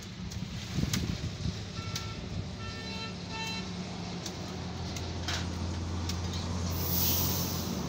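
Nearby road traffic: a vehicle engine running, growing louder in the second half, with a horn giving three short toots early on, and a hiss near the end. Small sharp metallic clicks come from a steel pick being worked around the ram of a bottle jack.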